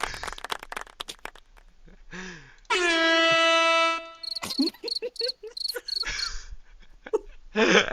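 Sound effects played into a voice chat: a quick flurry of clicks, then a loud, steady horn-like tone held for over a second, followed by a run of short high beeps.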